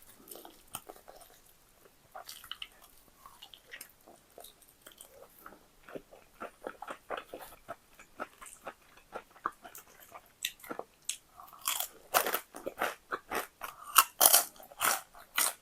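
Close-up crunching and chewing of crispy fried chicken: crackly bites and chews, sparse at first, then coming a few times a second from about six seconds in and growing louder near the end.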